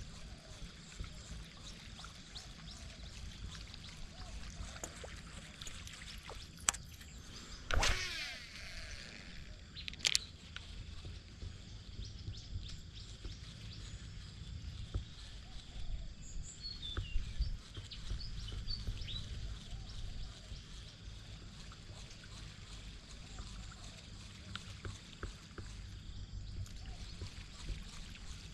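Wind rumbling on the microphone with faint bird chirps. A few sharp clicks from handling a baitcasting reel, and about eight seconds in a short whirr that falls in pitch.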